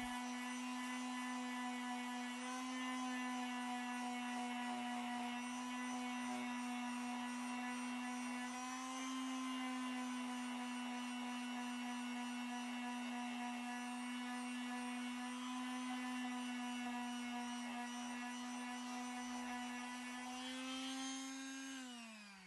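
Electric orbital sander running at a steady pitch while sanding body filler flat on a UPVC door. Near the end it is switched off and the whine falls away as the motor winds down.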